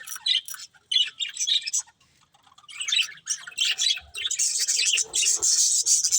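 Pet budgerigars chirping in quick runs of short high notes, pausing briefly, then breaking into dense, nearly continuous chatter and squawks near the end.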